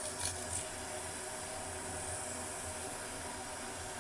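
Steady hiss of a gas stove burner under a pan of heating tea water. A few short scrapes from ginger being grated into the pan come in the first half-second.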